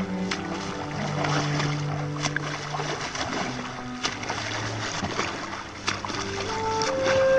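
Background music with long held low notes and a rising run of higher notes near the end, over a steady rush of water noise from a boat.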